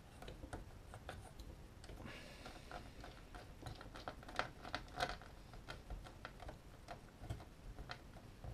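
Faint, irregular clicks and light taps of hands working a screw and a plastic undertray on the underside of a DJI Phantom quadcopter, with a few sharper clicks about halfway through.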